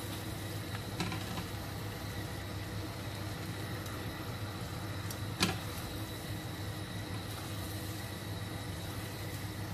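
Pasta being tossed in bolognese sauce in a steel pan with metal tongs, over a steady low hum. The tongs give one sharp click against the pan about halfway through.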